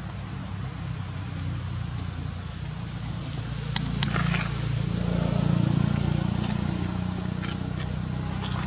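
Low rumble of a passing vehicle that builds to its loudest about halfway through and then fades, with two sharp clicks just before the peak.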